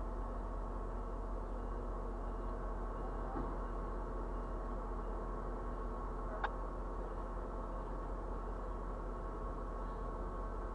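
Steady idling engine hum, a low rumble with several fixed tones held throughout, with one short sharp click about six and a half seconds in.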